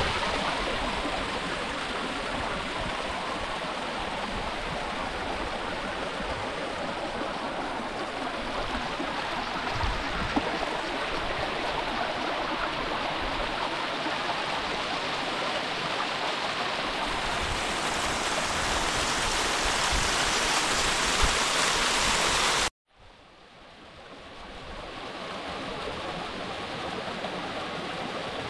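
Steady rush of flowing river water. About 23 seconds in it cuts out abruptly, then fades back in quieter.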